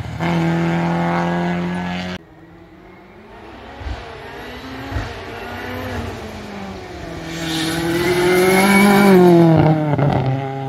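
Rally car engines on an asphalt sprint stage. The first is held at steady high revs and cuts off suddenly about two seconds in. Another car then accelerates closer, its engine rising in pitch and getting louder before falling away as it passes near the end.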